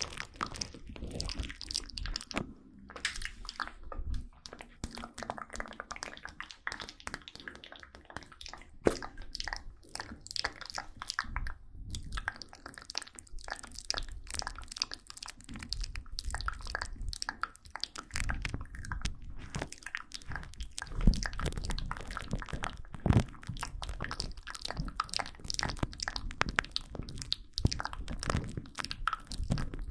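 Close-miked ASMR mouth sounds: a dense, irregular run of small wet clicks and crackles, with a few sharper clicks about nine seconds in and again around twenty-one and twenty-three seconds.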